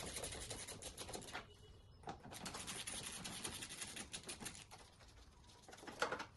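Hand ratchet on a long extension clicking rapidly as the bolts along the top of the grille are turned out, in two runs with a short pause between, then a single sharper click near the end.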